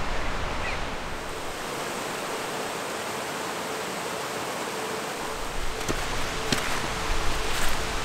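Mountain creek rushing and cascading over rocks, a steady rush of water. About six seconds in, a few sharp clicks and knocks come in over it.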